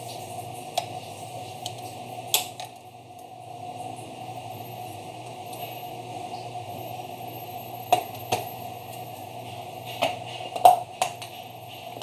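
Scattered sharp clicks and knocks of a Jura Z6's brewing unit being handled, pulled out of the machine and set down on a stainless-steel sink drainboard, over a steady low hum. The loudest knocks come in a cluster in the last few seconds.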